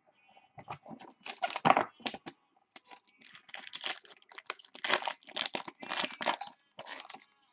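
Plastic wrapping crinkling and tearing in irregular bursts as a sealed trading-card box and its pack are opened, the rustling growing denser and louder about three seconds in.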